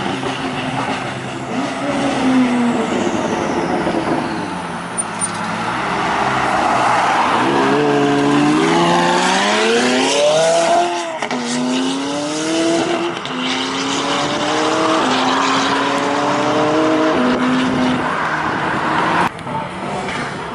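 Straight-piped McLaren 570S twin-turbo V8 exhaust. The engine note first sinks lower, then about seven seconds in it revs up hard in a long rising sweep. After that it accelerates through several quick upshifts, the pitch climbing and dropping back at each gear change.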